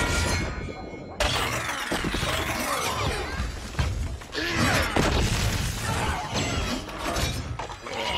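Movie sound effects of giant robots fighting: metallic crashes and smashing impacts, with sliding mechanical whirs, over a music score. A sudden loud crash comes about a second in.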